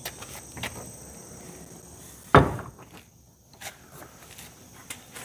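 Footsteps and light knocks, with one loud, sharp knock about two seconds in that rings out briefly.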